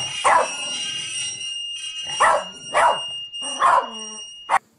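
Pembroke Welsh corgi barking four times, with a steady high-pitched tone sounding underneath that stops at a sharp click near the end.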